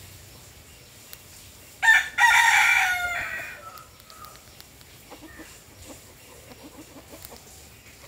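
A rooster crows once, about two seconds in: a short first note, then a long call that falls away at the end.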